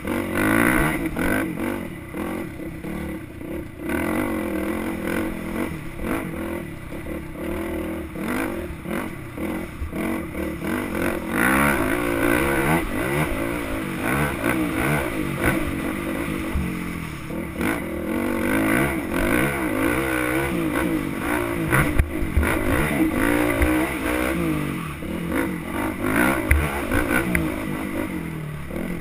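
Dirt bike engine revving up and down again and again as it is ridden, with a few sharp knocks from the bike hitting bumps.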